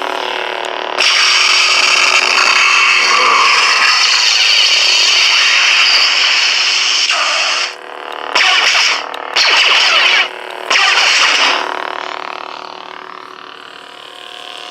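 Replica lightsaber hilt's CFX soundboard playing effects from the aux button over the steady blade hum: one long, loud burst of noise lasting about six seconds, then three shorter bursts, before it settles back to the hum.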